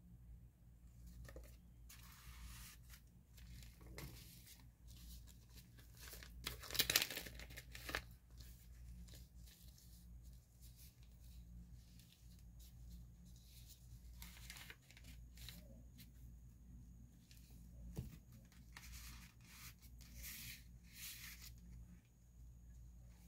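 Paper and card rustling as the pages, tags and envelopes of a handmade paper journal are handled and turned, in short irregular rustles with the loudest about seven seconds in.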